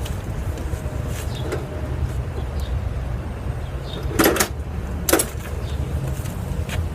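Steady low rumble of wind on the microphone, with a few short knocks and clinks of hand tools and metal parts being handled, two louder clanks about four and five seconds in.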